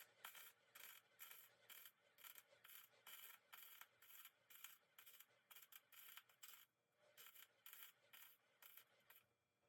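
Faint, rhythmic back-and-forth scraping strokes by hand, about two or three a second, that stop shortly before the end.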